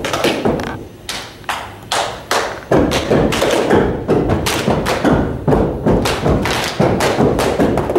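Gumboot dance stomping: feet striking the floor in rhythm, a few spaced stomps at first, then a fast, dense run of stomps from about three seconds in.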